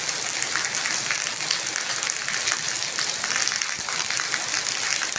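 Heavy rain falling on a wet paved yard, with streams of runoff splashing onto the ground: a steady, dense hiss of patter.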